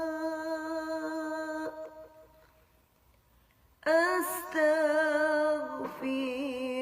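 A voice singing the Arabic istighfar chant: the last word of a line held as one long note that fades out about two seconds in, a pause of under two seconds, then the singing resumes.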